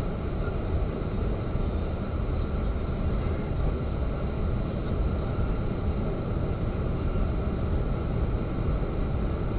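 Steady road and engine rumble inside a car cabin cruising at highway speed, picked up by a dashcam's built-in microphone, thin and muffled at the top.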